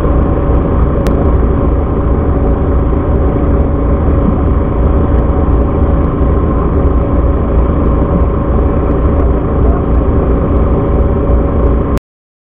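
Fishing boat's engine running steadily, a loud even drone with a strong low hum; it cuts out abruptly near the end.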